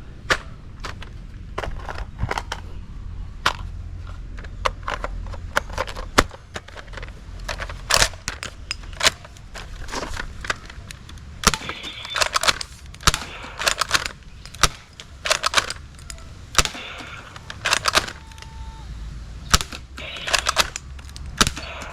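Irregular sharp clicks and clacks from handling and working a toy M16-style sniper rifle, some coming in quick clusters, over a low steady hum.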